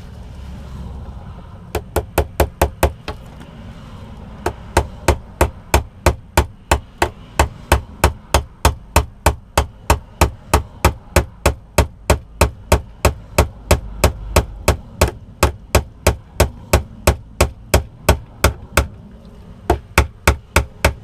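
Hammer tapping panel pins through plywood, quick even strikes about three a second. A short run of strikes comes about two seconds in, then one long steady run with a brief pause near the end.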